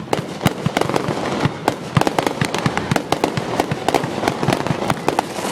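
Fireworks going off, a rapid string of sharp bangs and pops over a continuous crackle.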